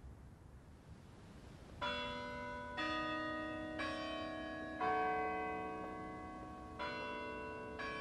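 Tower clock bells chiming a short tune. After a quiet first two seconds come single notes of differing pitch, about one a second, each left ringing, with a pause after the fourth.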